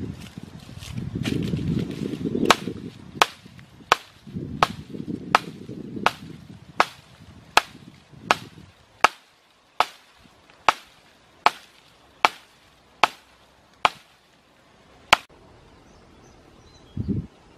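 Rhythmic chopping: about twenty sharp strikes of a blade or tool into wood or ground, roughly one every three-quarters of a second, stopping a couple of seconds before the end. A low rumbling noise runs under the first several strikes.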